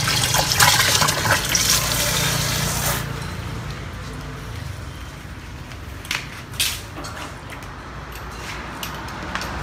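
Water from a garden hose pouring into the plastic tank of a battery knapsack sprayer, filling it. The loud rushing cuts off abruptly about three seconds in. After it, quieter background with two short knocks near the middle.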